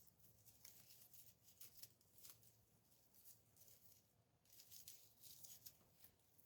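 Faint, irregular rustling of dry raffia being looped back and forth by hand to form a small bow.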